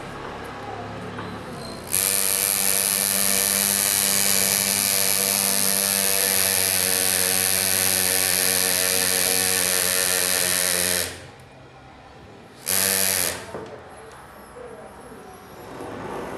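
Pneumatic engraver handpiece running as its graver cuts into a metal motorcycle engine cover: a steady buzz with air hiss. It starts sharply about two seconds in, runs for about nine seconds, and cuts off, followed by one brief burst about two seconds later.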